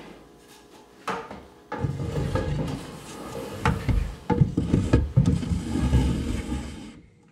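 Wooden beams on a furniture dolly knocking and rubbing as the Fisker Karma's battery pack is shifted into place on them, a run of knocks with low rumble from about a second in that cuts off suddenly near the end.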